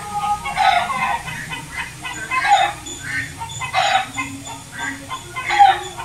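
Chickens clucking in short calls that repeat about once a second.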